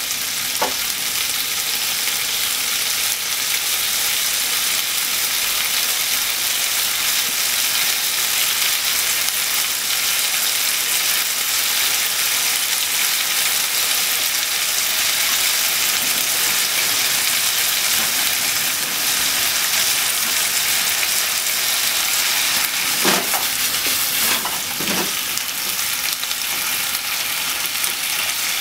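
Pork belly, onion and okra sizzling steadily in a frying pan. Near the end, a few short scrapes and knocks as chopsticks stir the food in the pan.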